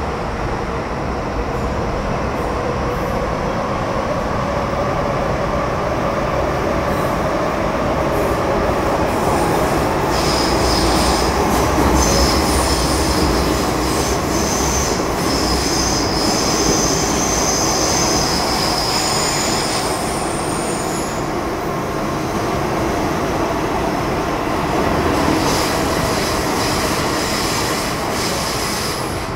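Metro Cammell M-Train electric multiple unit (car C212, GEC GTO chopper traction) running between stations: steady wheel-on-rail rumble with a faint whine from the traction equipment, and high-pitched wheel squeal from about a third of the way in that lasts roughly ten seconds.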